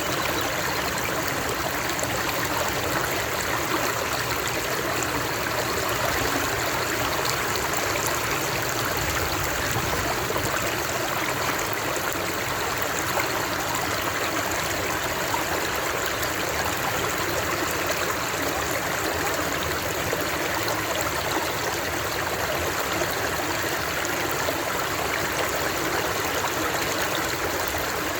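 Running water flowing steadily, an even unbroken hiss.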